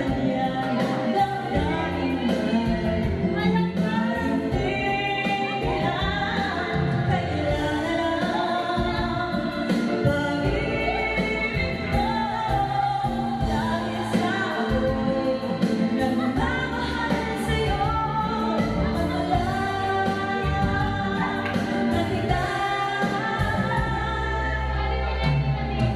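A woman singing a song into a handheld microphone over musical accompaniment.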